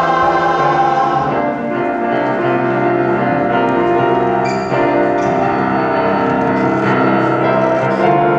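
Music: piano accompaniment of a stage-musical song playing sustained chords in an instrumental passage between sung lines.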